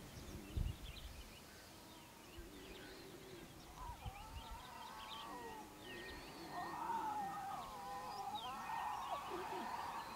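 Lion cubs growling at one another while jostling to suckle from the lioness: a wavering, whining growl that starts about four seconds in and runs on. Small birds chirp in the background.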